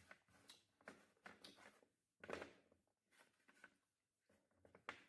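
Close-up mouth chewing crunchy food: a run of irregular, crisp crunches, the loudest about two seconds in and again near the end.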